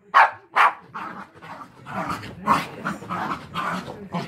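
Small dog barking: two sharp barks close together, then a run of softer, quicker barks about three a second, and another sharp bark near the end.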